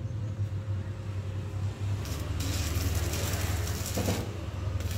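Electric arc welding on the truck's bumper bracket: a steady electrical hum, then from about halfway through the arc crackling and hissing loudly, with a short break near the end.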